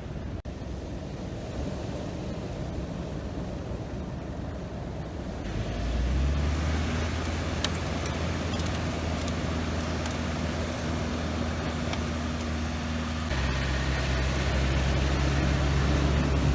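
A steady rushing noise, then about five seconds in a vehicle's engine starts a steady low hum that runs on to the end, shifting slightly in tone about two-thirds of the way through.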